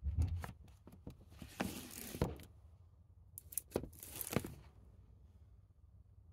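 Handling noise: scattered clicks and two longer rustles of plastic, the first about one and a half seconds in and the second around four seconds in, then it goes quieter.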